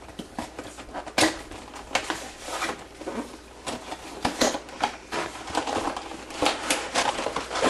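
A CPU cooler's cardboard box and packaging being opened and handled by hand: a quick, irregular run of rustles, clicks and taps.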